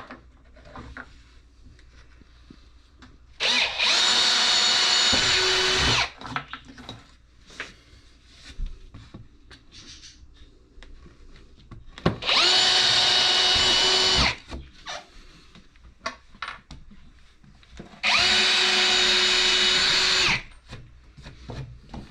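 Power drill boring screw holes through a wooden board in three separate runs of about two seconds each, a steady motor whine that starts and stops abruptly each time. Small knocks and clicks of handling come between the runs.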